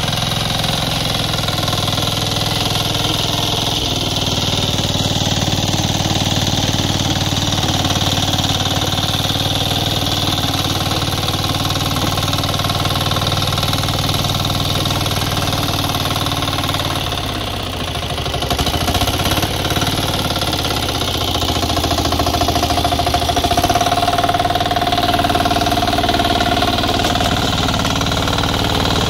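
10 hp diesel engine of a two-wheel walking tractor running steadily under load while its rotary tiller works the soil. The engine note sags briefly a little past halfway, then picks up again.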